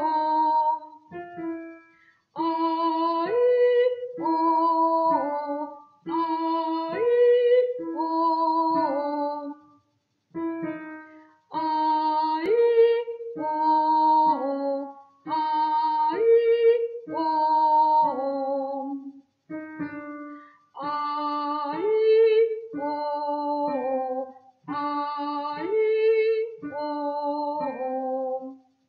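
A woman singing a vocal warm-up exercise: short repeated phrases of held notes with brief pauses between them, the pattern stepping chromatically up and down from phrase to phrase.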